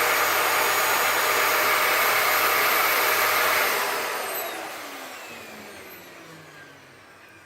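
Vacuum cleaner running steadily, then switched off a little under four seconds in, its motor whine falling in pitch as it spins down.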